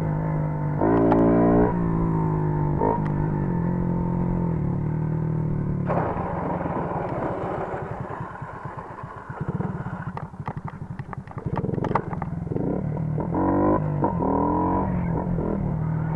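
Small two-stroke moped engine revving under a rider's throttle. The pitch climbs sharply about a second in and again near the end. In the middle the revs fall to a slower, rougher putter, broken by a few sharp clicks.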